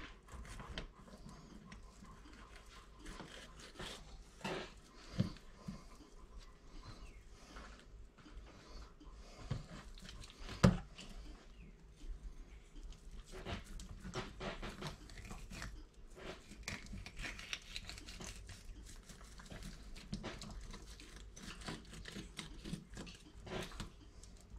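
A knife slicing a small chain pickerel on a wooden cutting board: faint scrapes and soft taps, with one sharper knock about eleven seconds in. A dog pants close by.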